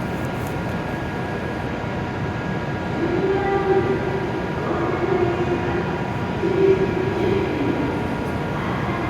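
E7 series Shinkansen train pulling into the platform. Its running noise is steady, with a humming tone that swells and wavers from about three seconds in.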